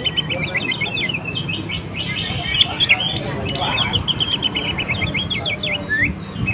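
Oriental magpie-robin singing a fast run of short, chattering notes, with a few louder, sharper notes about two and a half seconds in. It is lure song, used to provoke caged magpie-robins that have stopped singing into answering.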